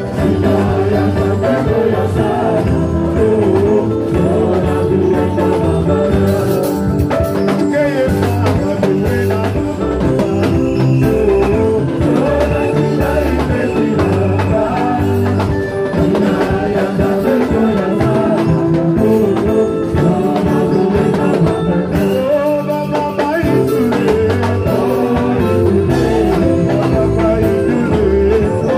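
Live church praise music: a worship band playing with singing over a steady bass line.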